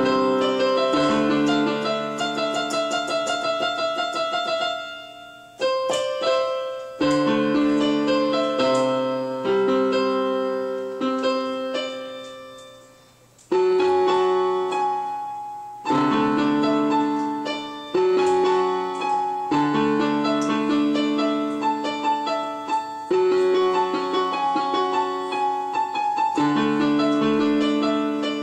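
Electronic keyboard played with a piano sound: two-handed chords and melody, held and left to ring. The sound dies away twice, about five seconds in and again near thirteen seconds, before fresh chords are struck.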